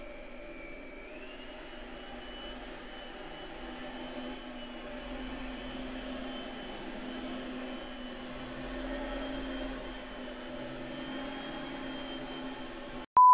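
Upright vacuum cleaner running over carpet: a steady motor whine that steps up in pitch about a second in. Near the end the sound cuts off suddenly and a short, loud beep follows.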